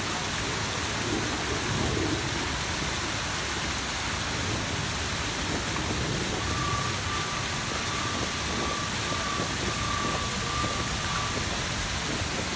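Grand Cascade fountains: the Samson fountain's tall jet and the surrounding jets and cascades falling into the basin, making a steady rush of splashing water.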